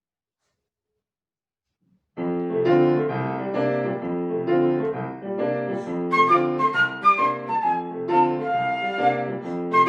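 Piano and flute music: after about two seconds of silence the piano starts suddenly with repeated chords, and a few seconds later a flute line with held notes comes in above it.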